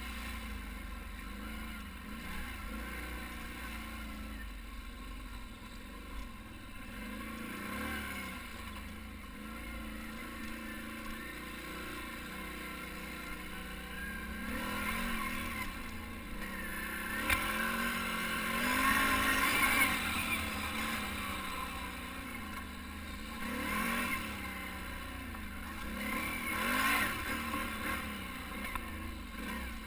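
ATV engine running under changing throttle as it rides a trail, its pitch rising and falling over and over. Louder rushes of noise come near the middle and toward the end.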